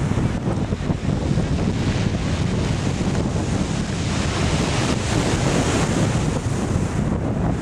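Waves breaking and washing on a shingle beach, with wind buffeting the microphone in a heavy low rumble.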